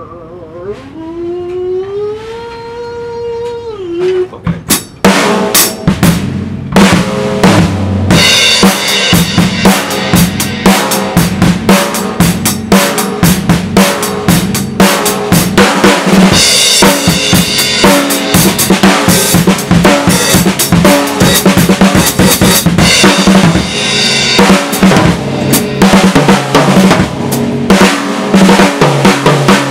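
Acoustic drum kit played hard with sticks: snare, bass drum, toms and cymbals in a fast, busy pattern that starts about five seconds in. Before that, a single held tone slides up and back down.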